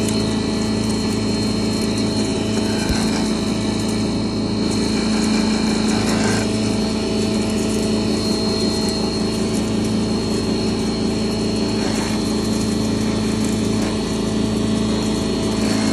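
Double-chamber stoneless millet grinding machine running steadily, a constant machine hum with a steady high whine over it.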